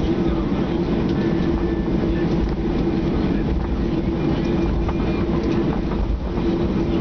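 Cabin noise of a Boeing 737-800 taxiing, heard from a window seat over the wing: the CFM56 engines running at idle as a steady hum over the low rumble of the airliner rolling along the taxiway.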